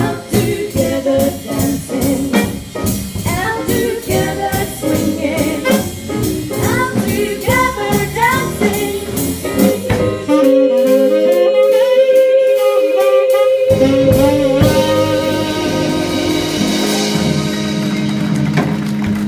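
Live swing band with saxophone, drums and women's voices singing, playing the close of a song. A brisk rhythmic passage runs for about ten seconds. Then the drums and bass drop out under a long held note with vibrato, and the band returns to a sustained final chord that cuts off near the end.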